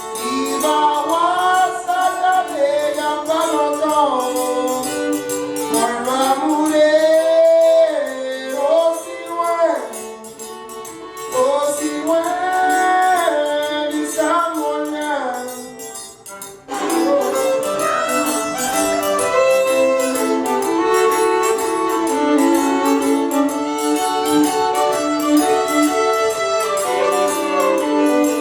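Live Cajun string-band music: a vocal line sung over steady held fiddle notes, then about two-thirds of the way through the singing stops and the fiddles take an instrumental break.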